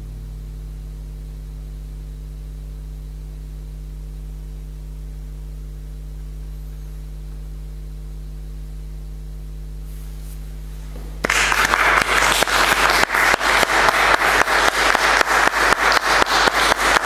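Audience applauding, breaking out suddenly about eleven seconds in and going on as dense, steady clapping. Before it there is only a low, steady hum.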